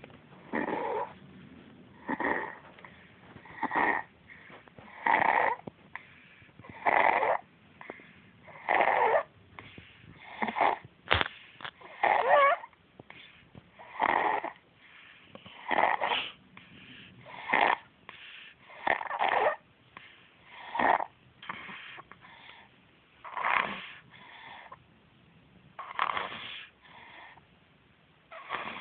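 A person snoring in their sleep, one snore every one and a half to two seconds, with a quicker run of short snores around eleven to twelve seconds in.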